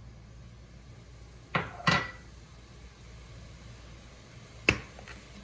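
Kitchen dishes being handled: two quick knocks about a second and a half in, and another sharp knock near the end, over a steady low hum.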